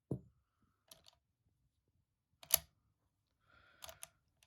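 Spent .303 brass cases being loaded into the magazine of a Lee-Enfield SMLE Mk III rifle: a soft thump at the start, then a few separate sharp metallic clicks, the loudest about two and a half seconds in and a quick pair near the end.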